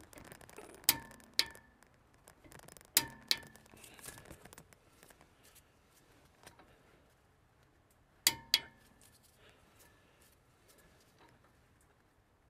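Click-type torque wrench on a castle socket clicking at its 70 ft-lb setting as the inner wheel-bearing nut is pulled tight to seat the bearings. There are three pairs of sharp metallic clicks, each with a short ring: about a second in, about three seconds in, and about eight seconds in.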